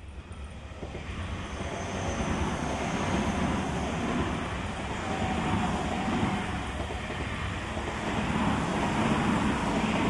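Tobu 50050 series electric train passing close by, its wheels and running gear giving a dense, steady rumble. It builds over the first couple of seconds, stays loud as the cars go by, and begins to fade at the very end.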